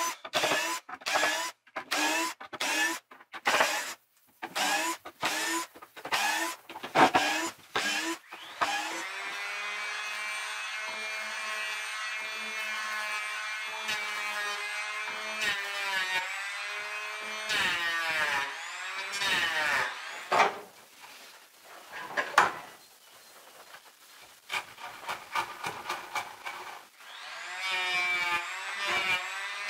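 Cordless drill on a plywood board, run in short bursts about twice a second. Then a handheld power tool runs with a steady whine, sanding the edge of the plywood board; it drops off and starts again a few times, spinning back up near the end.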